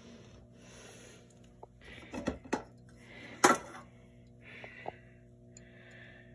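Fluorescent fixture's ballast humming steadily as an old 40-watt tube is started, with a few sharp clicks and a louder knock about three and a half seconds in. The old tube is slow to light fully.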